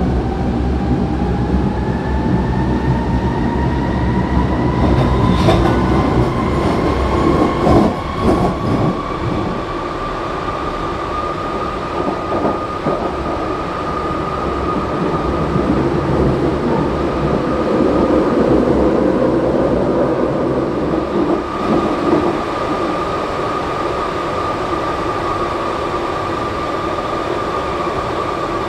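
Berlin U-Bahn GI/1E small-profile train heard from on board as it accelerates away from a station: a motor whine rises in pitch for about the first ten seconds, then holds steady as the train runs on through the tunnel. Wheel rumble runs underneath, with a few sharp knocks from the track about six to eight seconds in.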